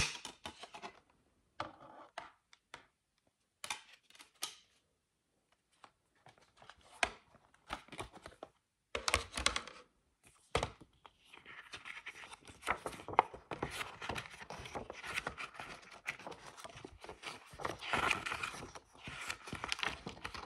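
Plastic CD jewel case handled and opened, with scattered short clicks and knocks, then its paper booklet taken out and the pages turned, a dense crackly rustling from about halfway through.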